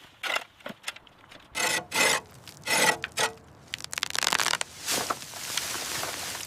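Irregular scraping and rasping strokes on a hard surface, some short and some drawn out, becoming a steadier continuous scrape near the end.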